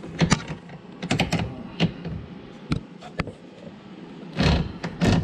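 Clicks and knocks of slip-joint pliers and a brass elbow fitting being worked onto a dishwasher's plastic water inlet valve, with a few louder, longer knocks near the end.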